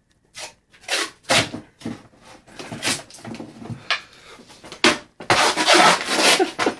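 Silver duct tape being pulled off the roll in several short rips, then one longer continuous pull about five seconds in, as it is wrapped around a water-ski boot and ski.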